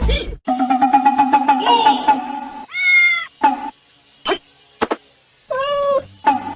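Domestic cats meowing: a long drawn-out call, then a short meow about three seconds in and another near the end, with a couple of light taps in between.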